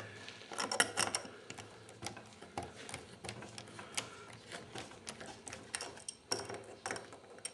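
Adjustable spanner working a dome nut onto a bolt: a run of irregular light metal clicks and scrapes.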